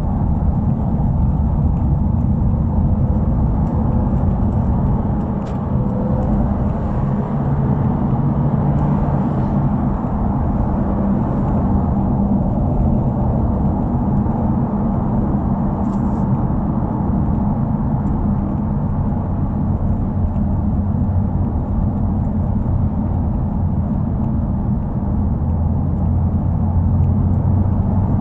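Subaru WRX's turbocharged flat-four engine and exhaust running while driving in slow traffic. A steady low rumble with road noise, its pitch shifting now and then with engine speed.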